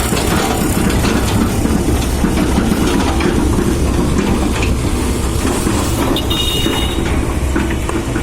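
Heavy construction machine, a giant poker rig, running on site with a steady deep rumble and dense rattling. A brief high-pitched squeal cuts in about six seconds in.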